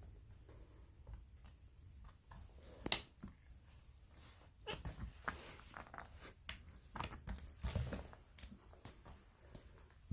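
A domestic cat making short, rough noises, with scattered clicks, the densest run about halfway through.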